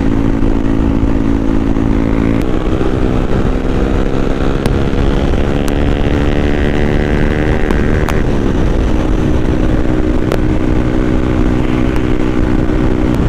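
Yamaha R15 V3's single-cylinder engine running through an Akrapovic slip-on exhaust with the dB killer removed, under way. The note steps up about two seconds in and climbs steadily as the bike accelerates, drops about eight seconds in as the revs fall, then holds steady.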